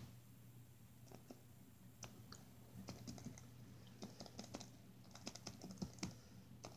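Faint, irregular clicks and taps of a small plastic toy figure being handled and moved about, over a steady low hum.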